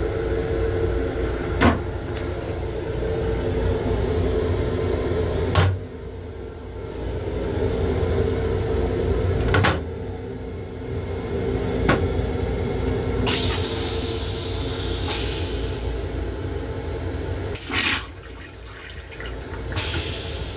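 LIRR M7 railcar toilet flushing: a long rushing hiss about two-thirds of the way in, then two shorter bursts near the end, over the railcar's steady hum and rumble. A few sharp knocks come in the first half.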